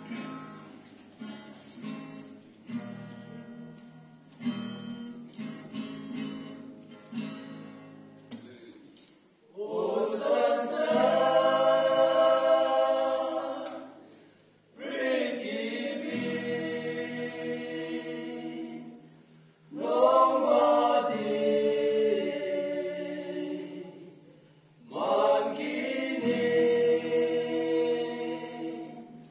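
Acoustic guitar strummed alone for about the first nine seconds, then a group of men singing together over it in four long phrases, with short breaks for breath between them.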